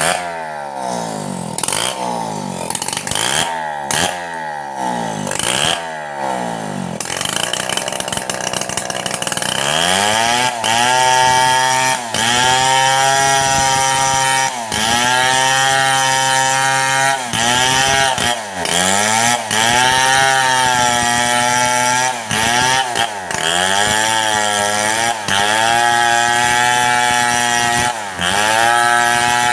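Two-stroke chainsaw ripping a mahogany log lengthwise. Its engine pitch drops and recovers again and again for the first several seconds, then holds at high revs with brief dips as the chain bites into the wood.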